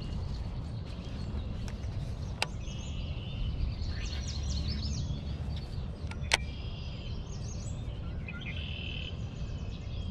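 Small songbirds singing repeated warbling phrases and trills over a steady low rumble of outdoor noise, with two sharp clicks, about two and a half and six seconds in.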